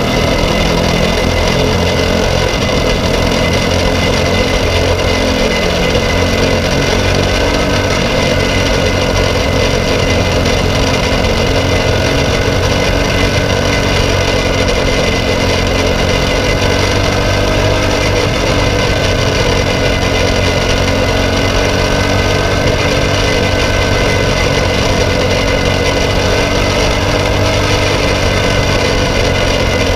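Briggs & Stratton LO206 single-cylinder four-stroke kart engine running hard at racing speed, heard close from onboard. The note stays high and steady, rising and dipping only slightly.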